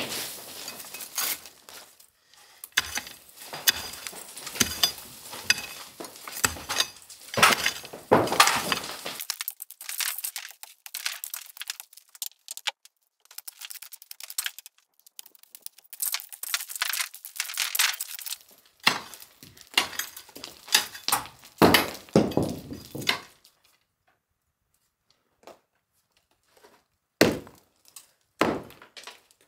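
Mattock chopping and scraping into packed earth and brick rubble, in uneven bursts of strikes with pieces of rubble clinking and clattering as they fall. The strikes stop for a few seconds near the end, then start again briefly.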